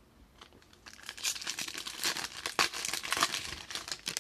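Foil wrapper of a Panini Prizm basketball card pack crinkling and tearing as it is ripped open. The dense crackle starts about a second in.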